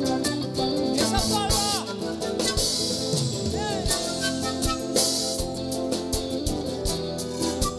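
Live band music with a drum kit keeping a steady beat under electric guitars.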